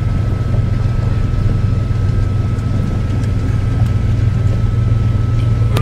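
Steady low drone of a vehicle's engine heard from inside the cabin, with a thin steady high whine over it.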